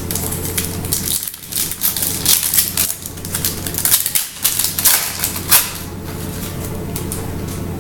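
Foil wrapper of a 2016 Optic baseball card pack crinkling as it is torn open and the cards pulled out. It makes a run of sharp crackles that dies down about six seconds in.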